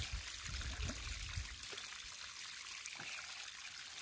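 Water trickling steadily into an irrigation pond, with a few low thuds in the first second and a half.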